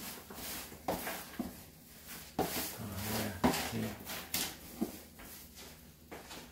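Gloved hand rummaging through wood-shaving and shredded-paper bedding in a plastic tub: irregular rustling and scraping, with a few sharp knocks against the tub's plastic sides.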